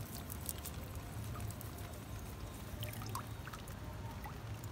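Shallow muddy water splashing and trickling as a hand reaches in and lifts out a small fish, with a few small splashes about three seconds in. A steady low hum runs underneath.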